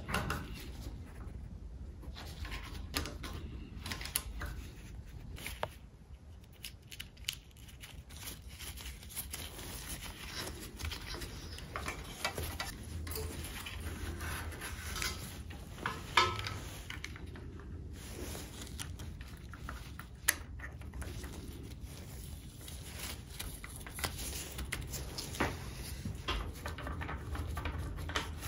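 Gloved hands fitting parts onto an aluminium motorcycle triple clamp: scattered small clicks, taps and rustling of rubber gloves and parts, over a low steady hum.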